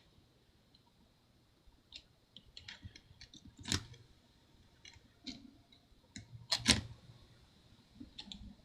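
Scattered small clicks and taps from handling the connectors and bracket inside an opened MacBook Pro, with a louder click about a third of the way in and another cluster a little past two-thirds.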